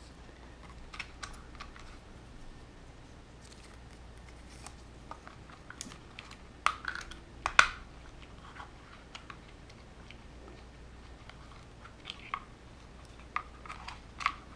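Scattered light clicks and taps of hard plastic parts and wires being handled as a radio-controlled truck's receiver and ESC cover is fitted back onto the chassis. The loudest clicks come about seven seconds in, with more near the end.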